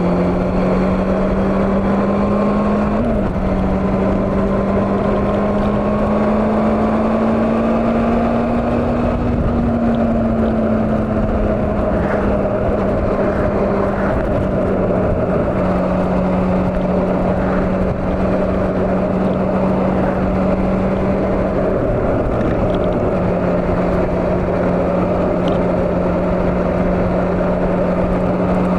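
Honda CB400 motorcycle engine running steadily while cruising, with a constant rush of wind. The engine note creeps up over the first several seconds, then eases down and settles as speed changes.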